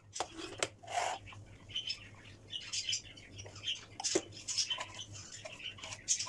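Small plastic food chopper being opened and its chopped garlic scraped out with a spoon into a mixing bowl: scattered taps, scrapes and small plastic squeaks.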